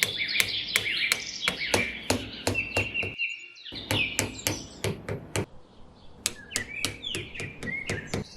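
Birds chirping over a run of sharp taps, about three a second. Everything drops out for about half a second near the middle, then the taps and chirps carry on.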